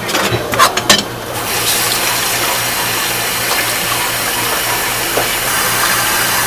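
A few sharp clatters of dishes or utensils, then a tap running steadily into a sink from about a second and a half in.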